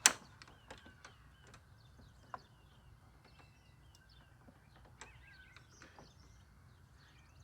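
A sharp click, then a few faint taps and one small metallic clink from hand work fitting a mower's blade engagement cable into its sleeve and fittings. Small birds chirp in the background.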